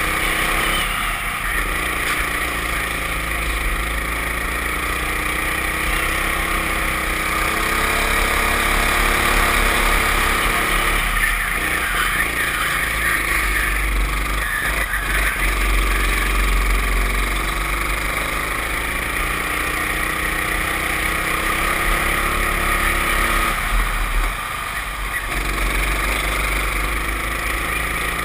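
Racing go-kart engine at full throttle. Its pitch climbs steadily for several seconds at a time, then drops off sharply as the throttle is lifted for a corner, about four times.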